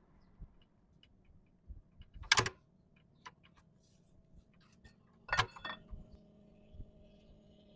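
Sharp metallic clinks and knocks, as of tools or metal parts being handled, with two louder clanks about two and a half and five and a half seconds in and faint ticks between.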